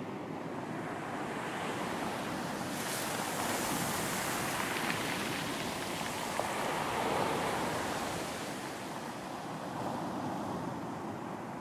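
Surf washing up on a beach: the hiss of a wave swells about three seconds in, then dies back after about eight seconds.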